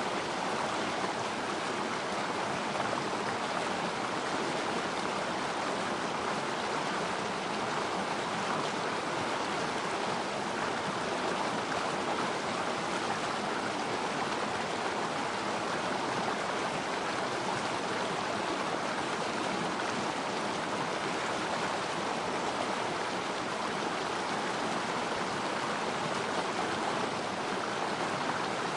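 Water flowing steadily in a small river stream, an even rushing burble.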